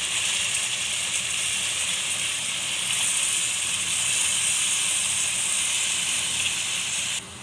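Hot oil-rich masala sizzling steadily in a metal pan as freshly washed moongre (radish seed pods) are tipped into it. The sizzle cuts off suddenly near the end.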